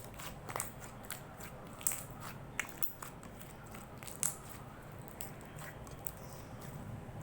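Slime being squeezed and worked by hand, giving irregular sharp clicks and pops a few times a second.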